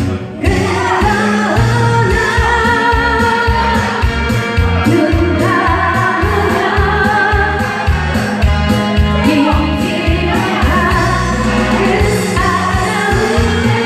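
A singer singing with vibrato over musical accompaniment with a steady beat.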